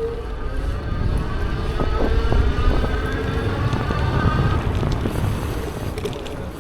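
A motor running with a whine that slowly rises in pitch over a deep rumble, growing louder to a peak about two to three seconds in and then fading.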